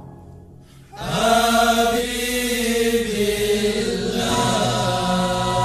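Sholawat devotional singing: after a brief quiet dip, a chanted vocal line starts about a second in with long held notes, shifting pitch about four seconds in.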